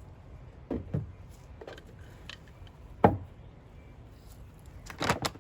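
Scattered knocks and clicks of a bird feeder and food containers being handled, the loudest about three seconds in, with a quick cluster of knocks near the end.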